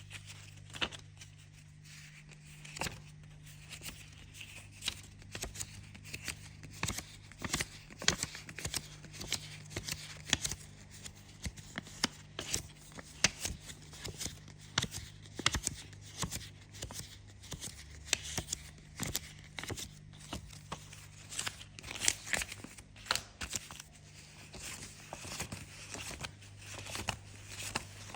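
Paper banknotes counted by hand, each note giving a short crisp flick, one or two a second in an uneven run.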